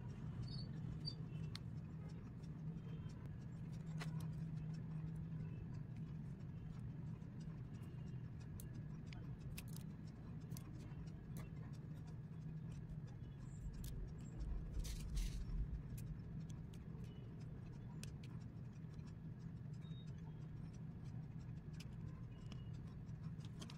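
Diamond-painting drill pen picking up resin drills and pressing them onto the sticky canvas: scattered small clicks and taps over a low steady hum, with a louder low bump about fifteen seconds in.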